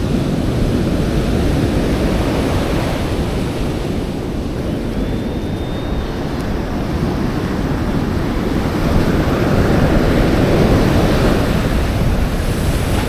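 Atlantic surf washing on the beach, mixed with wind buffeting the microphone; the wash swells louder about nine seconds in.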